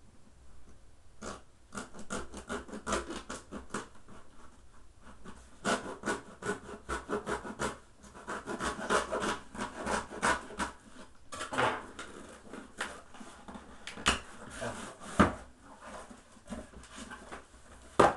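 A kitchen knife scrapes and slices through the packing tape on a cardboard shipping box in a long run of quick scratching strokes. Sharper knocks of the cardboard being handled come near the end.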